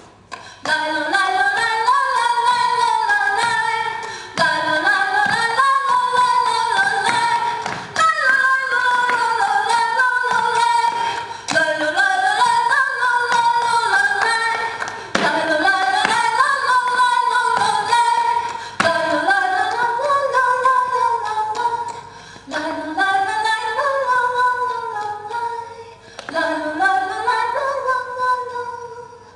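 A woman sings flamenco cante unaccompanied, in long melismatic phrases of a few seconds each, separated by short breaths.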